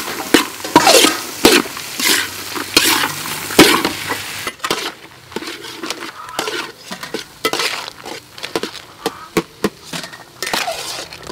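A metal spatula scraping and tossing chopped long beans, carrot and egg in a hot, sizzling wok, with strokes under a second apart. After about four and a half seconds it turns quieter, with scattered clicks and clatter as whole rock crabs are turned in a wok.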